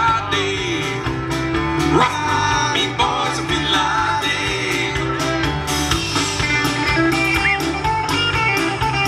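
Live band playing an upbeat folk-rock song on acoustic and electric guitars, bass guitar and drums, with the guitars to the fore.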